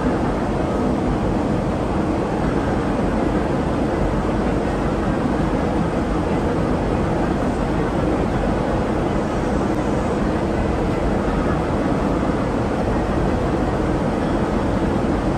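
Steady cabin noise inside a Boeing 777-300ER airliner in flight: an even rumble and rush of engine and airflow that does not change. The aircraft is descending towards landing.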